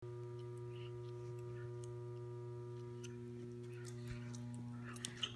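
Steady electrical mains hum with evenly spaced overtones, with a few faint clicks near the end.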